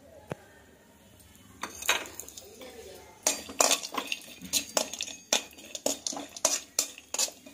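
A metal spoon scraping and knocking against an aluminium kadai as cashews are stirred and fried in ghee. There is a single click about a third of a second in, then the scrapes and knocks come steadily, about two a second, from about three seconds on.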